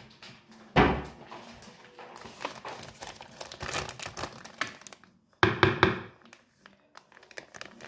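Paper bag of flour crinkling and rustling as it is handled and opened, with a loud thud about a second in and a few sharp knocks a little past the middle.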